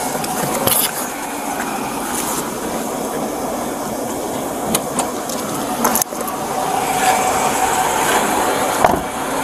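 Steady running noise of an idling vehicle, with rustling and a few sharp clicks as a seatbelt is pulled across a seated person and buckled.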